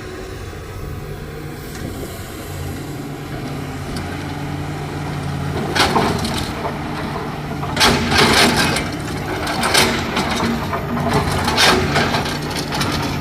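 Diesel engine of a JCB 3DX backhoe loader running steadily under load. From about halfway through there is a run of loud crunching and cracking as soil and stones are scooped and tipped into a dumper.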